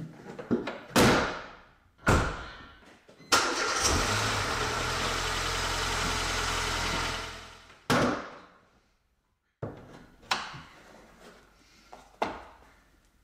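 The bonnet is pushed shut with a thump about a second in. About three seconds in, the 2006 Mercedes-Benz A150's 1.5-litre four-cylinder petrol engine is cranked and catches. This is its first start on fresh oil and a new filter. It idles steadily for about four seconds and is switched off, followed by a few separate thumps.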